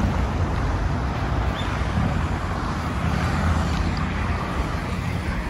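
Steady low rumble of wind on the microphone mixed with city traffic noise while walking outdoors.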